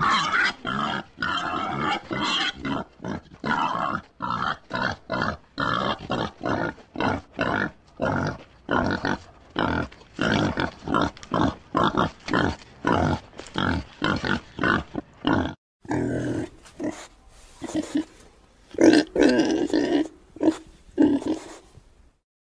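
Pig calls: a fast run of short grunts and squeals, about three a second. About fifteen seconds in, a different recording takes over with slower, louder grunts.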